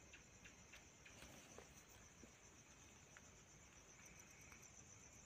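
Near silence with a faint, steady high-pitched chirring of crickets, and a few faint clicks from the phone being handled.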